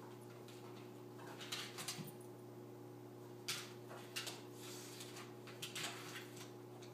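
A Staffordshire cross Labrador chewing on a toy: several short clusters of crunching clicks, over a faint steady hum.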